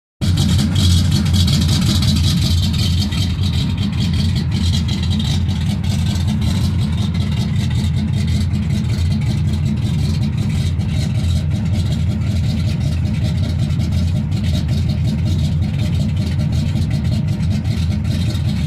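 Ford F-150's cammed 351 V8 idling steadily through a new 2.5-inch exhaust with an X-pipe and a Cherry Bomb Extreme muffler.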